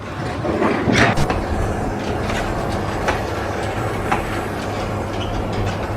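A steady mechanical rumble and clatter, with a few sharp clicks.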